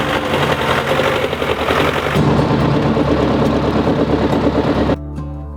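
Tractor engine running with a rapid, even clatter of firing pulses. About five seconds in it cuts off abruptly and acoustic guitar music begins.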